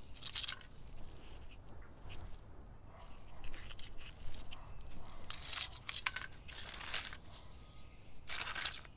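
Gloved hands handling the crushed remains of an R/C car: short bursts of rustling, crinkling and tearing as the foam insert is pulled from a tire, with small clicks of broken plastic.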